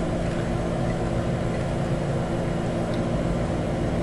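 A steady low mechanical hum with a constant rushing noise behind it, even throughout, like a running appliance or fan motor.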